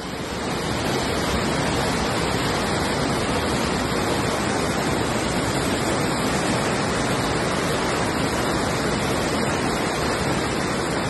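Muddy flash-flood water rushing down a street as a fast torrent: a steady, loud rush of water with no break.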